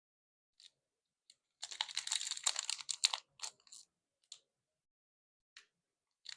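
Crinkling and clicking of Pokémon trading card packaging and cards being handled: a few scattered clicks, a dense crackly stretch of about a second and a half starting about a second and a half in, then more separate clicks and a sharper crackle near the end.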